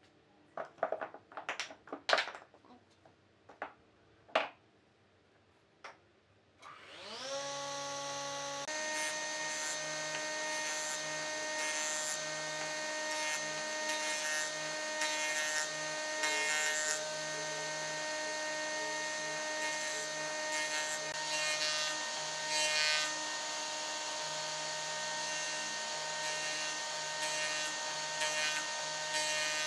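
Wooden log sections knocking together as they are set down, then a jointer's electric motor starts about seven seconds in, its whine rising in pitch and settling into a steady run. The spinning cutterhead then planes the small log pieces in repeated passes, each a burst of rasping cutting noise over the whine.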